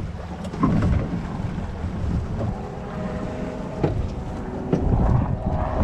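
Wind buffeting the microphone on a small boat in choppy water, with a few sharp knocks and a faint steady hum in the middle.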